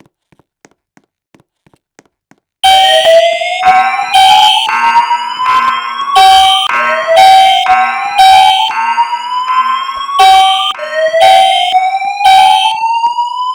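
School fire alarm system sounding its evacuation signal, starting suddenly about two and a half seconds in. A whoop tone slides slowly upward over about four seconds and starts over, while short steady blasts pulse about once a second.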